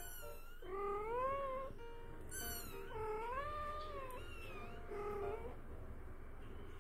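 Persian cat meowing three times, long drawn-out meows that rise and then fall in pitch, each about a second long, over light background music.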